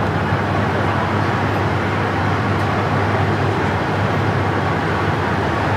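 KiHa 40 diesel railcar running, a steady low engine hum under even rail and running noise.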